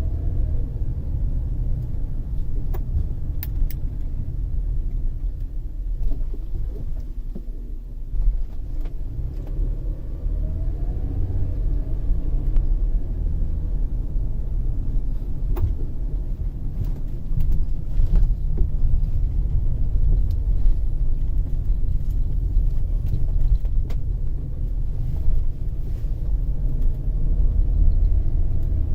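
2005 Toyota Sienna minivan on the move: steady low road and tyre rumble with a grinding noise from the front passenger wheel, heard as faint tones that rise and fall now and then. The owner notes the grinding is loudest when lifting off the gas and goes away under braking, and suspects a wheel bearing or the brakes.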